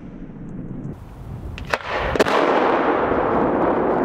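Rumbling aftermath of a 16-inch aerial firework shell's mortar launch, with two sharp cracks less than a second apart near the middle, then a louder, steady rolling rumble as the shell climbs before bursting.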